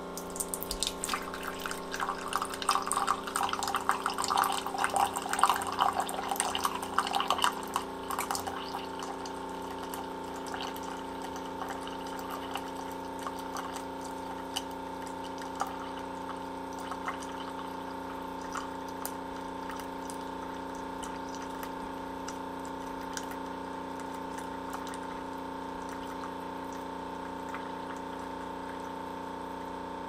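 Keurig K-Elite single-serve coffee brewer brewing a cup: its water pump hums steadily while a thin stream of coffee pours into a ceramic mug. The splashing is loudest for the first several seconds, then settles into a quieter, steady trickle as the mug fills.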